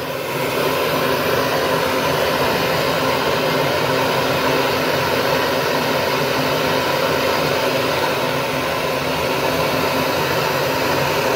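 Bernzomatic TS8000 trigger-start torch burning with a steady, loud hiss as its flame heats a brass tub spout adapter to sweat-solder it onto a copper pipe.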